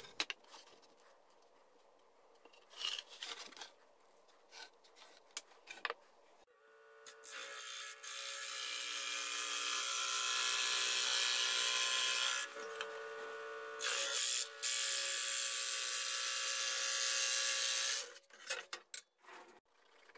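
Scattered knocks of wooden pieces being handled and set down, then a scroll saw starts up and runs, cutting thin plywood, for about ten seconds with a brief dip in the middle before it stops; a few more knocks near the end.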